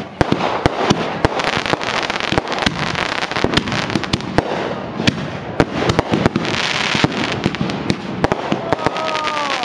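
Aerial fireworks bursting in quick succession: many sharp bangs overlapping, over a continuous crackle of crackling stars.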